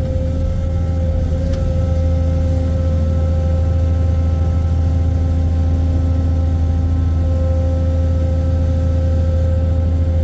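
Ship excavator's heavy diesel engine running steadily, a deep hum with a steady higher-pitched whine over it.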